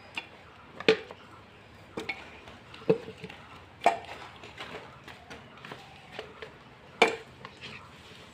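Pieces of beef trotter bone dropped by hand one after another into a metal pressure cooker, each landing with a sharp knock against the pot, roughly once a second with lighter knocks between and a short pause before the last loud one.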